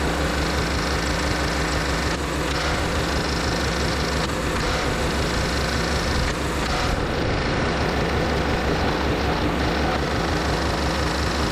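Small petrol engine running steadily at an even speed, with a fast regular firing beat.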